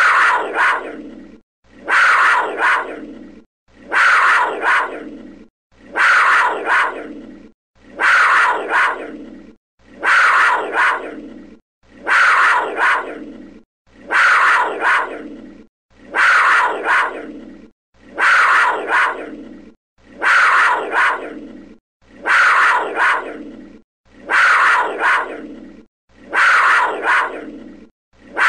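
Panther growl: one short call that starts sharply and trails off, repeated identically about every two seconds as a loop.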